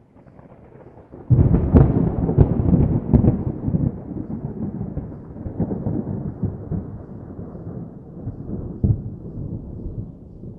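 Thunder: a low rumble that breaks into a loud crackling crash about a second in, then rolls on and slowly fades, with another sharp crack near the end.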